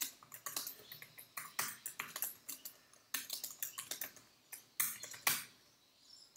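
Typing on a computer keyboard: quick, irregular keystrokes in two runs, with a short pause about halfway.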